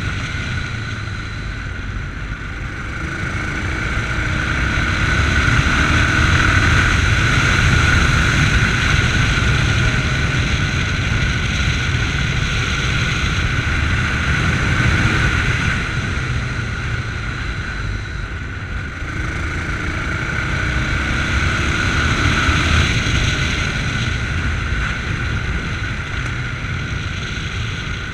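Yamaha MT-03 motorcycle engine heard from the rider's chest while riding, pulling up in revs twice as it accelerates and easing off between, over a steady rush of wind on the microphone.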